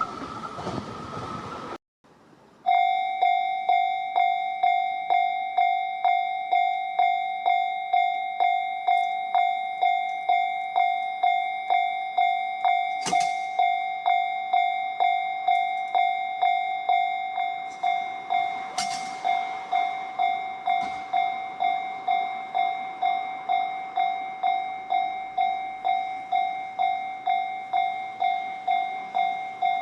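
A Japanese level crossing's electronic warning bell ringing, a single pitched ding repeated at an even pace of roughly one and a half strokes a second. It follows the end of a train's passing rumble, which is cut off sharply about two seconds in.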